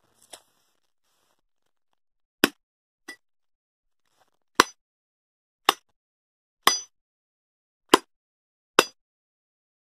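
Colombian military surplus machete chopping into a log: six sharp strikes, the later ones about a second apart, plus a couple of fainter knocks. A few strikes carry a brief ring from the blade.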